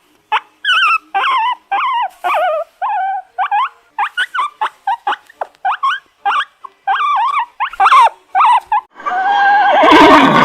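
A dog whimpering and yelping in a quick series of short, high calls that waver in pitch. Near the end, a horse starts to whinny.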